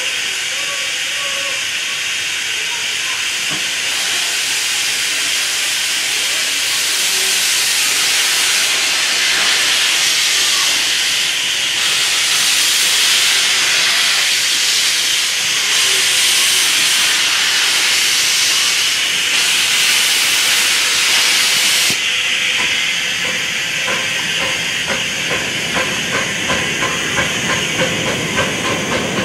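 A 7¼-inch gauge Rio Grande 2-6-0 steam locomotive hissing steam, growing louder and surging unevenly about halfway through as it eases forward with its cylinder drain cocks blowing. From about three quarters of the way through, a quick regular beat sets in as it pulls its train away.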